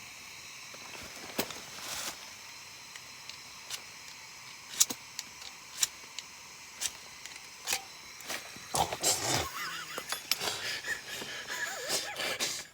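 Gas hissing steadily from a camp stove burner, with sharp clicks about once a second as the igniter is tried without lighting it. The hiss cuts off suddenly at the end.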